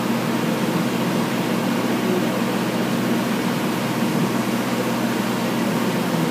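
Steady, unchanging low mechanical drone with a constant hum, like an engine running at idle.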